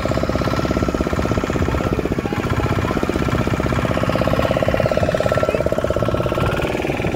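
A motor boat's engine running steadily with a fast, even chugging beat as the boat moves across the water.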